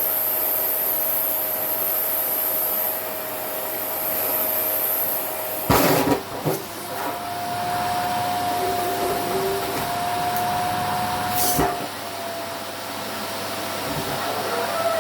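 Vacuum cleaner running and sucking at a down jacket. There is a steady whine, with a loud sudden rush of air about six seconds in and again near twelve seconds, and the whine sits a little higher in pitch between the two rushes.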